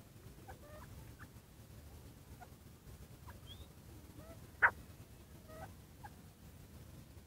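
Caged teetar (francolin) giving scattered short, faint chirping calls, with one sharp, much louder call about four and a half seconds in.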